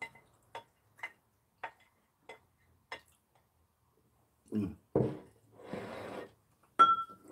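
A metal spoon tapping and scraping on a ceramic plate, about six light strokes a little over half a second apart, pushing leftover kimchi pancake into a bowl of rice. A few seconds in, the plate is set down on a wooden table with a knock and slid along it, and a sharp ringing clink of crockery sounds near the end.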